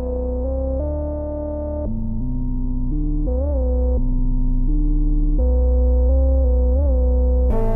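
Instrumental intro of a hip-hop beat: a synthesizer plays a slow line of held notes over deep bass, bending in pitch twice. The full beat with its high percussion comes back in just before the end.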